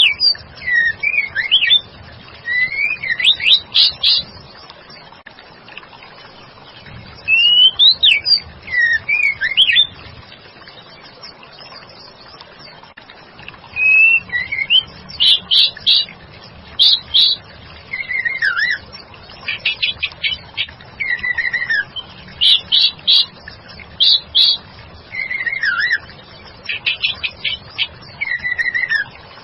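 White-rumped shama calls, presented as a female shama calling to draw a male. The calls are short phrases of clear whistled notes that slide up and down, mixed with quick runs of rapid notes. They come in bursts separated by pauses of a few seconds.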